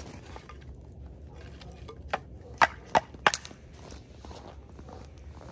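Four sharp knocks in quick succession about two seconds in, over a low steady background noise.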